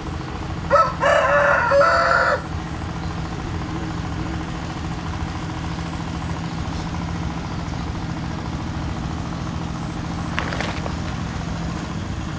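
A rooster crows once, about a second in, a loud drawn-out call, over the steady running of a hand tractor's Yanmar diesel engine.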